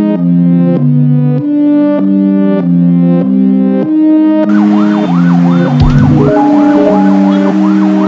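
Synthesizer and keyboard music playing steady chords. About halfway through, an ambulance siren cuts in with a fast rising-and-falling wail over traffic noise, the music carrying on underneath, with a brief low thump about six seconds in.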